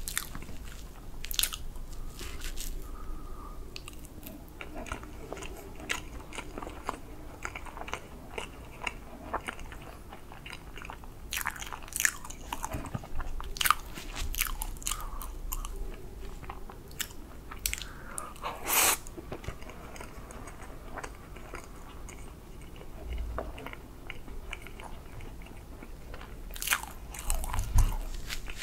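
Close-miked chewing and wet mouth sounds of someone eating soft whipped-cream chocolate sponge cake, with scattered sharp clicks and a metal fork cutting into the cake.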